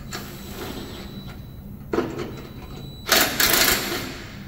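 Cordless impact driver running down the bolts of a mower deck's blade spindle housing in two bursts: a short one about two seconds in, then a longer, louder run of about a second.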